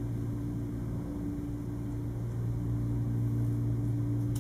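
Room tone: a steady low hum with a faint hiss, and a single sharp click near the end.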